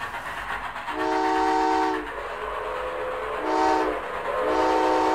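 Steam train sound effect: the whistle blows three times, long, short, then long, over the steady rumble of the running train.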